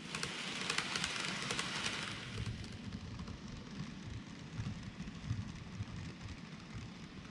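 N gauge model trains running on layout track: a rushing wheel-on-rail noise with rapid clicks over the rail joints, loudest in the first couple of seconds. After that it settles to a lower, uneven rumble as a second train, the white 885 series set, runs past close by.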